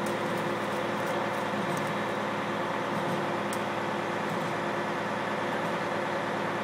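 A truck engine idling with a steady, even hum.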